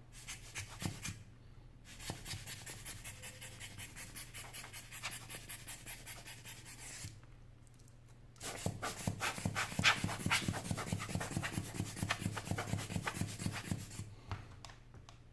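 Rapid back-and-forth rubbing by hand, about four to five strokes a second, in two spells with a short pause between them; the second spell is louder and fuller.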